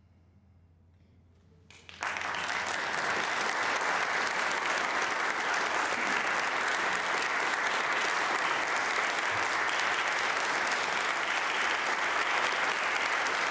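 About two seconds of near silence, then an audience suddenly breaks into applause that continues steadily.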